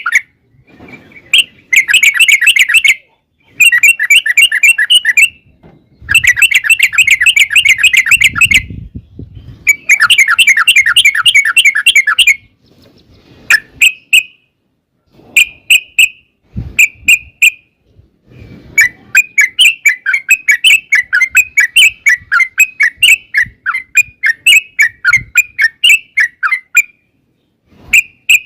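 Yellow-vented bulbul (trucukan) singing: fast chattering phrases of rapidly repeated notes, each burst lasting a second or two with short pauses between, then a long unbroken run of notes in the last third.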